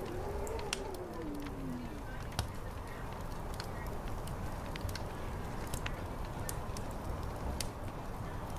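Medieval tavern ambience: a fire crackling, with sharp pops scattered through, over a low steady background of murmuring chatter and wind. In the first two seconds a drawn-out pitched sound rises and then falls.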